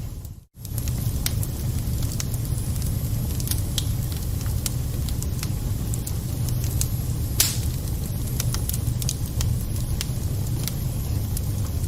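Wood fire burning in a fireplace: a steady low rumble with scattered crackles and one louder pop about seven seconds in. The sound drops out briefly about half a second in.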